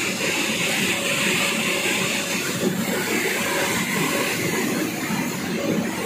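Steady mechanical din of bottling-line machinery running: a continuous rumble with a hiss above it.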